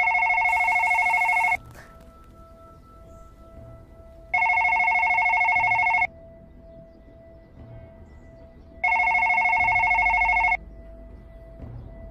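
Cordless home telephone ringing with an electronic ring: three rings about a second and a half long, repeating every four and a half seconds, with a faint steady tone between them.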